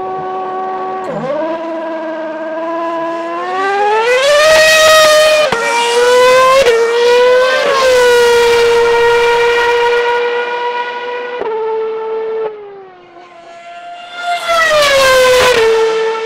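Formula One car's V8 engine. It holds a steady high-pitched note, then revs climb hard with quick upshifts. It holds a high steady note, drops away, and surges up through the revs again near the end.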